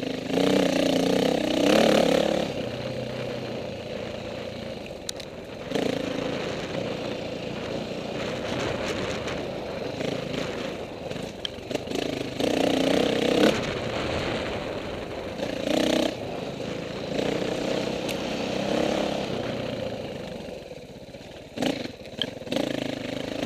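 KTM 450 four-stroke single-cylinder dirt bike engine running on and off the throttle, rising in several short bursts of revving between steadier stretches.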